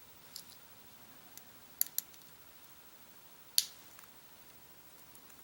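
Master Lock padlock being picked with a pick and tension wrench: a handful of sharp, light metallic clicks from the pick and the lock's pins, the loudest about three and a half seconds in.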